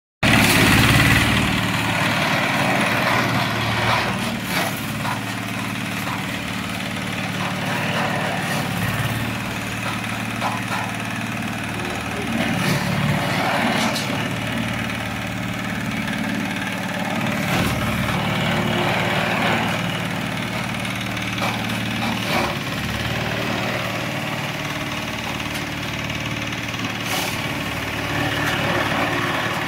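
Small diesel engine running steadily, driving a soil crusher as soil is fed through it. There are a few sharp knocks and scrapes scattered through as the soil is shovelled in.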